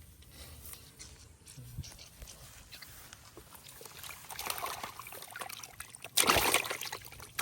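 Water sloshing and splashing, faint with small clicks at first, growing from about four seconds in, with a loud splash about six seconds in that lasts about a second.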